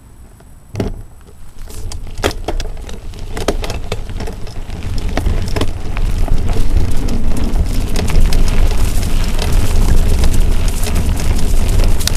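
Mountain bike ride on dry, leaf-covered dirt singletrack: wind buffets the camera microphone with a low rumble that grows louder as the bike gathers speed. Tyres crackle over leaves and twigs, and the bike clicks and rattles on the rough trail.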